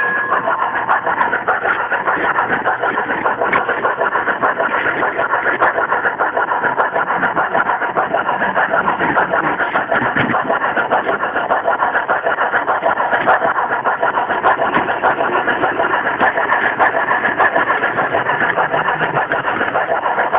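G-gauge garden railway train running along the track, heard from a camera riding on it: a steady, dense mechanical running noise that flutters rapidly.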